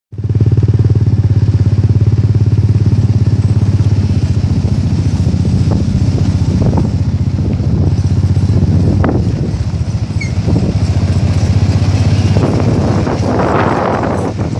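Off-road dune buggy engine running steadily with an even low pulse. Near the end a rougher rushing noise swells as another buggy comes close alongside.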